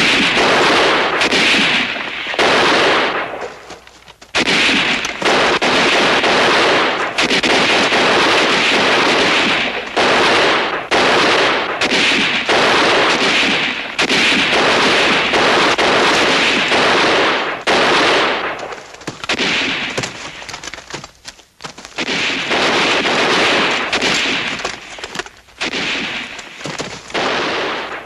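Sustained battle gunfire: bursts of machine-gun and rifle fire going almost without a break, with short lulls about four seconds in and around twenty-one seconds.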